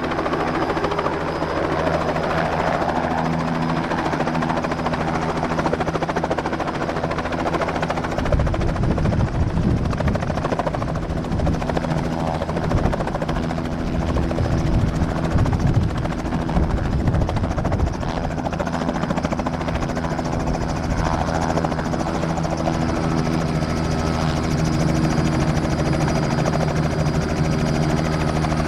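Robinson R66 Turbine helicopter with a Rolls-Royce RR300 turboshaft, hovering low and setting down on its skids, its two-blade main rotor and turbine running steadily. A gusty low rumble swells in the middle as it hovers close, then eases once it is on the ground.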